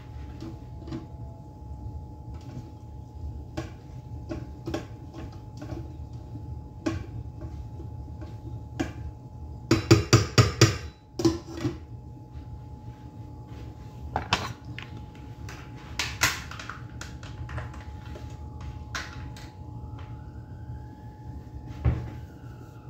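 Kitchen clatter of utensils and cookware: scattered sharp knocks and clicks, loudest in a quick run of about six strikes around ten seconds in, over a steady low hum.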